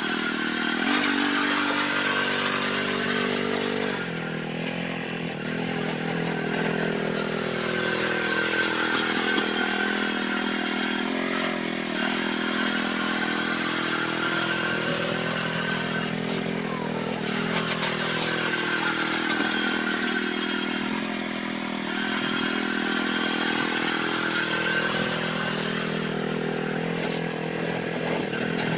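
Small petrol engine of a snow-clearing machine running steadily under load. Its tone sweeps slowly up and down every several seconds as the machine works back and forth.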